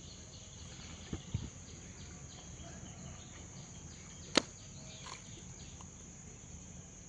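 Steady high insect drone with faint repeated chirps. Two soft thuds about a second in and a single sharp click a little past the middle, the loudest sound.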